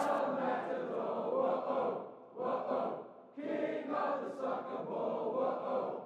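A large crowd of football fans singing a chant together, faint and in phrases, with short breaks about two and three seconds in.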